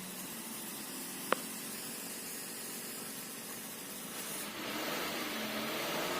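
Mazda 2 engine idling with its aftermarket imitation AC compressor, a steady hissing run broken by one sharp click about a second in. About four and a half seconds in the sound grows louder and rougher as the compressor runs with a grinding noise, the fault blamed on the imitation compressor.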